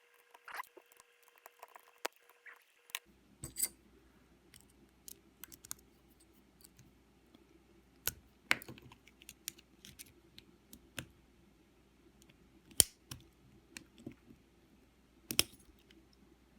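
Scattered light clicks, taps and clinks of small hard parts and tools being handled on a workbench while a milled-open Assa IC lock core is taken apart, with a few sharper knocks. A faint steady low hum starts about three seconds in.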